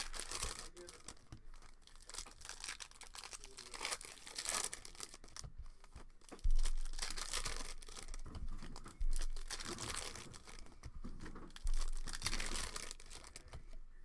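Foil wrapper of a trading-card pack crinkling and tearing as it is opened, with the cards shuffled in the hands. Three sudden dull thumps come in the second half.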